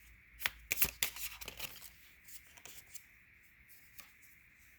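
Deck of tarot cards being shuffled and a card drawn: a quick cluster of crisp snaps and flicks in the first second and a half, then faint room tone.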